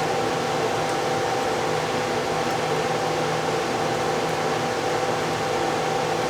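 Steady whir of a running fan, an even rushing noise with a low hum and a couple of steady tones in it.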